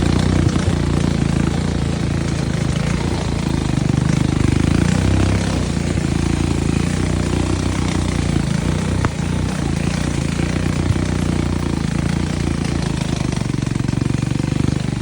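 ATV engine running steadily, a dense low rumble that holds on without a break.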